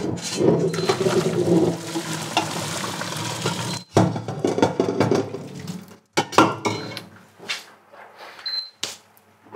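Pot of pasta being drained: hot cooking water pours from the pot into a colander in the sink for about four seconds, followed by a few knocks of pot and colander as the last water runs off.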